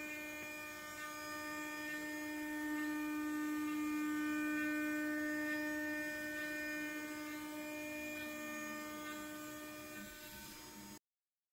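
CNC mill spindle with an end mill cutting an aluminium plate: a steady, pitched machining whine with overtones that swells a little mid-way and stops abruptly near the end.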